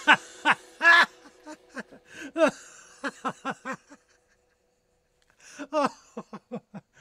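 A person laughing in quick short bursts, each falling in pitch. The laughter breaks off for about a second and a half midway, then starts again in a second run.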